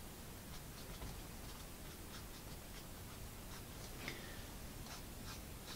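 Faint, irregular scratches of a paintbrush dabbing short strokes of acrylic paint onto a canvas, a few strokes a second.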